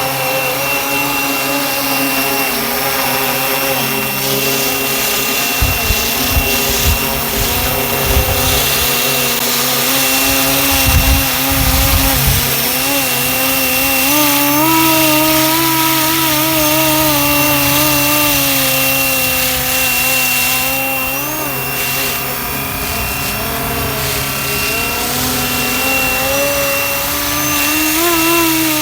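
Battery-electric FlyWing MH-60T Jayhawk RC helicopter in flight: its motor and rotor hum rises and falls in pitch as it manoeuvres, over a thin high whine that holds steady. A few brief low bumps of noise come about six and eleven seconds in.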